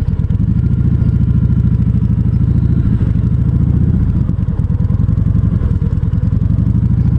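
Kawasaki Voyager 1700's V-twin engine running steadily at low revs, its firing pulses even and unbroken.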